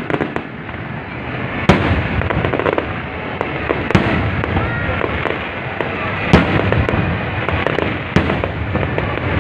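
Aerial firework shells bursting overhead: four loud bangs about two seconds apart over a continuous crackle and rumble of a dense fireworks display.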